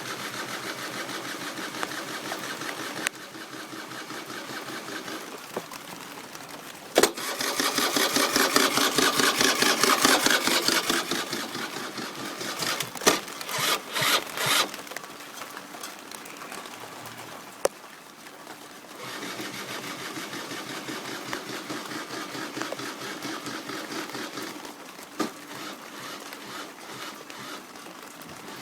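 A Peugeot Speedfight 3 scooter's engine being turned over by its starter in repeated tries without catching: the sign of a no-start fault. A few sharp clicks come between the tries, and the middle try is the loudest.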